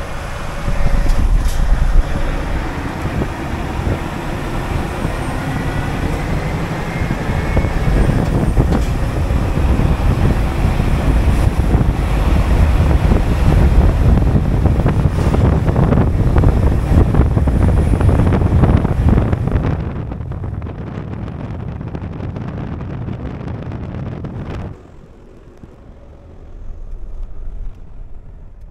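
Wind and road noise rushing over a camera mounted outside the cab of a moving Scania R520 timber truck, with the truck's running engine as a low rumble underneath. Near the end it turns much quieter.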